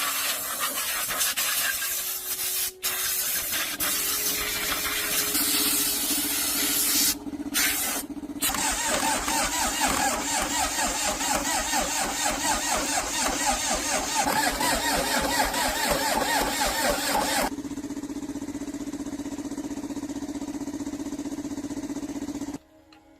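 Restored ZS1115 single-cylinder diesel engine running loudly with a fast, even firing rhythm. It is broken twice by brief gaps about seven and eight seconds in, drops to a quieter level about seventeen seconds in, and cuts off abruptly near the end.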